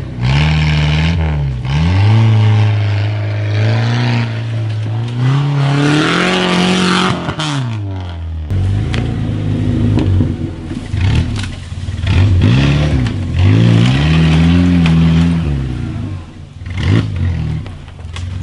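Off-road 4x4 engine revving in surges: it holds steady, climbs and drops again. About eight and a half seconds in, the sound cuts abruptly to another engine revving up and down in short repeated bursts.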